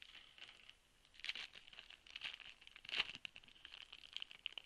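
Foil wrapper of a football trading-card pack being torn open and crinkled by hand: a run of short crackling rustles, the sharpest about three seconds in.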